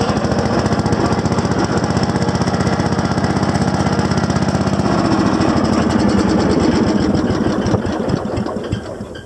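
Allis-Chalmers B10 garden tractor's single-cylinder cast-iron engine running with a rapid, even exhaust beat on its first run after years of sitting, the carburetor not yet cleaned. It fades away near the end.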